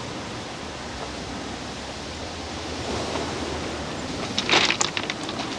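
Steady outdoor noise like wind or rushing water, with a short cluster of sharp, rasping noises about four and a half seconds in.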